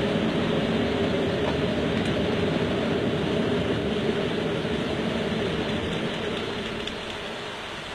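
Airflow noise on Concorde's flight deck: a steady rush that fades gradually over the last few seconds as the droop nose and visor are raised and the aircraft is streamlined.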